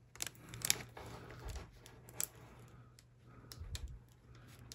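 Faint, irregular clicks and crackles from a diamond-painting canvas and its clear plastic cover film being handled, with a couple of soft low bumps, over a faint steady hum.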